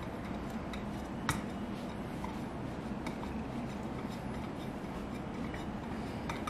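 Low room tone with a few faint, irregular clicks and taps from hexagonal glass mirror tiles being handled and pressed onto a wall; one sharper click about a second in.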